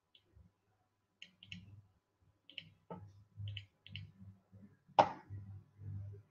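Light clicks from computer use at a desk, coming in small clusters with soft low bumps between them, and one sharper, louder knock about five seconds in.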